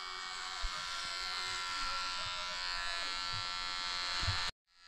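A small motor buzzing steadily with a high whine and a few soft low knocks, cut off abruptly about four and a half seconds in.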